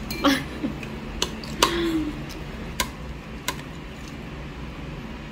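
Scattered light clicks and clinks of tableware, about five spread over the first few seconds, with a short hum of a voice near the start and again about two seconds in.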